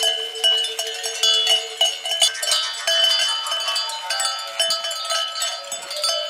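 Several sheep bells clanking irregularly at different pitches, a dense, overlapping jangle as the flock moves its heads while grazing.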